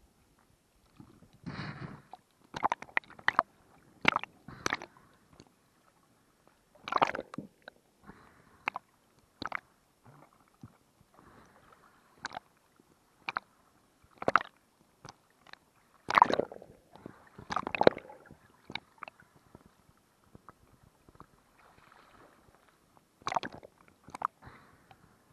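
Sea water splashing and sloshing against a camera's waterproof housing as it bobs in and out of the surface: irregular sharp splashes, often in quick clusters, separated by very quiet moments.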